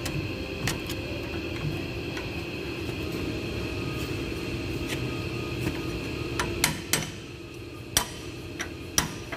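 A steady workshop hum, then, from about two-thirds of the way through, a run of sharp metallic clinks with a short ring: a metal tool striking at the spindle nut of an Isuzu truck's front wheel hub.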